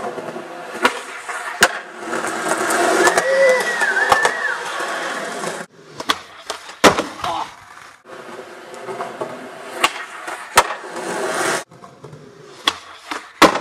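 Skateboard wheels rolling on concrete, broken by sharp clacks of the board popping and landing, across several short edited clips that cut off abruptly. A brief high wavering tone sounds about three to four seconds in.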